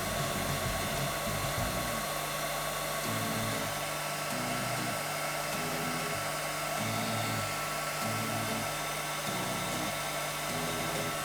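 Panasonic EH-ND61 2000-watt hair dryer running steadily on its medium-heat second setting: a constant whir of the fan and rushing air.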